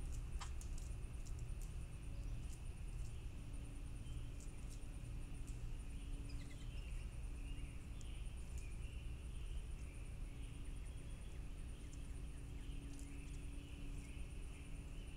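Summer outdoor ambience: a steady high insect drone over a low rumble, with scattered small ticks in the first few seconds, a thin falling whistle just after the start, and soft bird twittering about six seconds in and again near the end.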